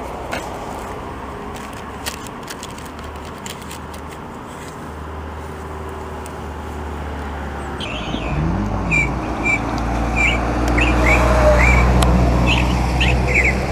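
Wind noise and small clicks as a roll of Mentos mints is handled and opened. From about eight seconds in, birds chirp repeatedly over a steady low hum, and a long breathy exhale comes near the end.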